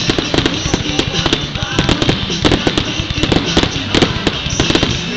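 Fireworks display going off: a dense, continuous string of sharp cracks and bangs, many a second, with no let-up.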